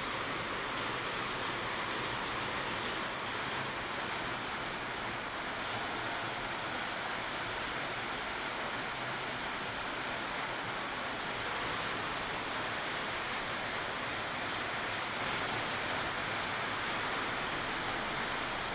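Rain falling steadily, an even hiss with no breaks or single drops standing out.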